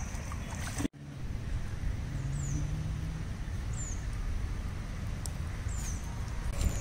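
A bird repeating a short, high, falling whistle about every second or so, over a steady low rumble. The sound drops out briefly about a second in.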